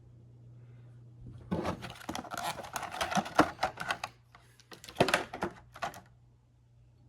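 Cardboard model box and its inner packaging being opened by hand: a few seconds of quick clicks, crackles and rustles, loudest in two bursts, then they stop.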